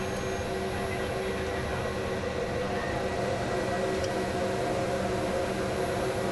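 Steady interior noise on the flight deck of a C-5M Super Galaxy: an even hiss of airflow and machinery with several steady humming tones underneath.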